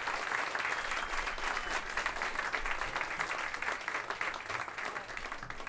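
Audience applauding, dense clapping that slowly fades toward the end.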